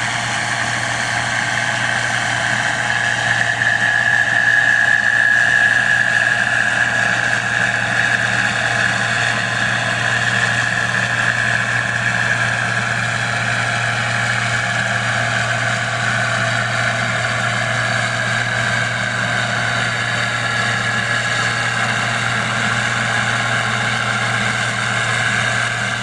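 Farm machinery engine running steadily at a constant speed, with a low hum and a high whine that sinks slightly in pitch.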